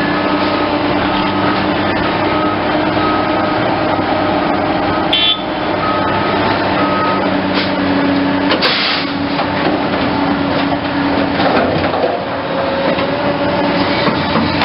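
Caterpillar hydraulic excavator's diesel engine running steadily under working load. A high beep repeats about once a second for the first half, with a few sharp knocks and a short hiss around the middle.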